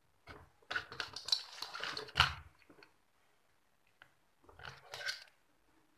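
Hands handling wires and a circuit board on a tabletop: a cluster of small clicks and rustles for about two seconds with one sharp knock, then a shorter cluster of clicks.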